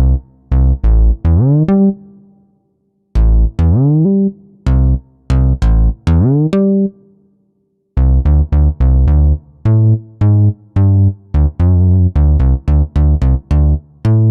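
Synthesizer plugin, Tracktion's Outersect Modeler, playing preset demos: short plucked, bass-heavy notes whose pitch slides upward as each one starts, in two phrases with a short pause between, then a faster run of short plucked notes from about eight seconds in.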